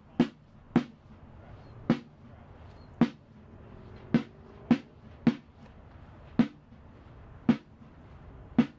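Sparse drum beat: single sharp drum strikes on a steady pulse of about two a second, with some beats left out.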